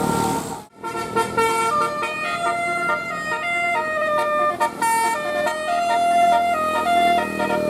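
Bus telolet basuri musical air horn playing a melody: a quick run of steady horn notes stepping up and down in pitch, starting after a sudden cut under a second in.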